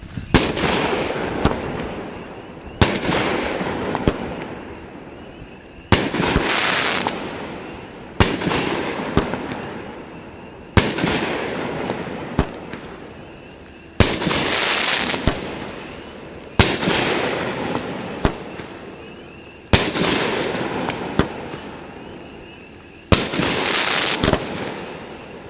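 A 200-gram consumer fireworks cake (repeater) firing its shots one after another, about nine in all, roughly every two to three seconds. Each shot is a sharp launch thump, then a bang as the shell breaks and a crackling hiss that fades before the next one.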